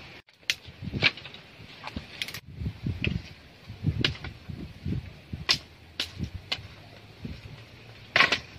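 Bolo knife chopping and trimming thin branches: a run of sharp, irregular chops roughly every half second to a second, with dull knocks of wood. A louder clatter of wood comes near the end.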